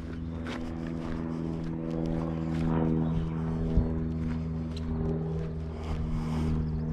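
A steady engine drone that holds one pitch throughout, with short irregular clicks and knocks over it, one sharper knock a little before the middle.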